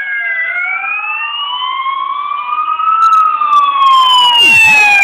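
Police escort sirens wailing, two or more slow rising-and-falling tones overlapping out of step, growing louder as they approach.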